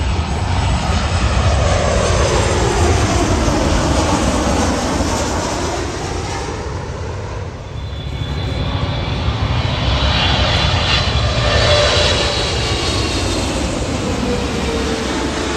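Jet airliners on final approach passing low overhead one after another, engines swelling and then falling away with a dropping whine; the second is an EVA Air Boeing 777 on its twin turbofans.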